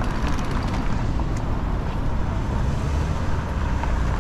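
Steady city street traffic noise: a continuous low rumble of passing vehicles.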